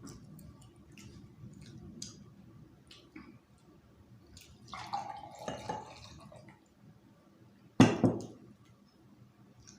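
Close-up eating sounds: small wet mouth clicks and smacks while chewing. About five seconds in comes a longer wet sucking sound, and near the end a single loud, sudden thump.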